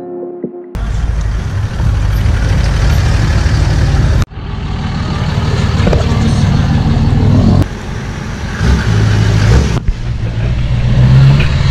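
Pickup trucks driving past one after another, their engines and exhaust running with tyre and road noise. The sound comes in separate clips joined by abrupt cuts about four, seven and a half, and ten seconds in.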